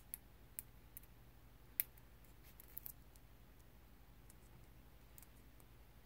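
Near silence with a few faint, scattered clicks and ticks of fingers handling and picking at a small adhesive sticker, checking whether it is double-sided.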